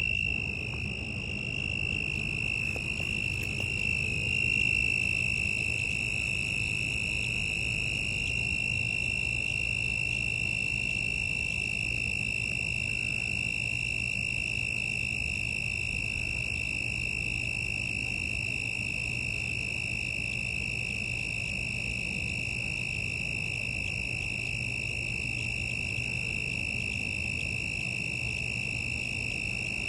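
Toads trilling: one high, unbroken trill with overtones that holds steady throughout and wavers slightly in pitch in the first few seconds. A low, steady hum sits underneath.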